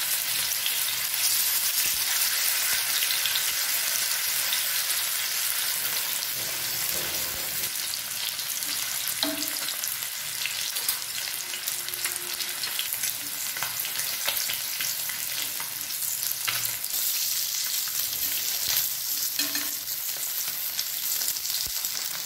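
Masala-coated catla fish steaks sizzling steadily as they shallow-fry in hot mustard oil on a tawa, with a few sharp pops from the oil now and then.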